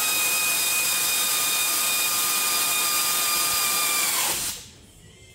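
Air ratchet running a bolt in: a steady high whine with air hiss for about four seconds, dropping in pitch as it winds down and stops.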